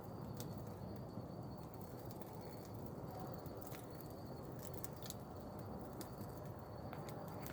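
Large wood campfire burning, with scattered sharp crackles and pops over a steady low rush.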